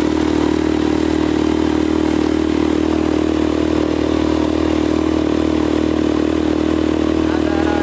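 ATV engine running at a steady speed while being ridden, a constant even drone with no change in pitch.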